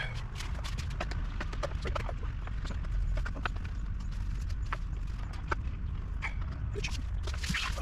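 Abrasive cutoff disc grinding into a stripped bolt, with a steady low hum and a string of irregular clicks and scrapes as the disc bites and chatters against the metal.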